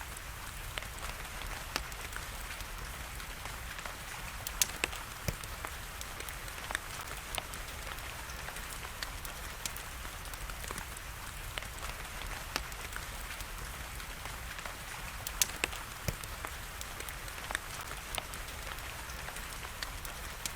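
Wood fire crackling, with scattered sharp pops and snaps, over the steady hiss of falling rain. A few louder pops come about five seconds in and again about fifteen seconds in.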